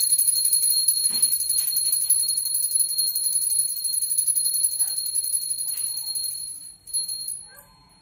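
Small brass puja hand bell rung rapidly and continuously for the aarti, a steady high ringing that stops about seven seconds in, with a few last rings after.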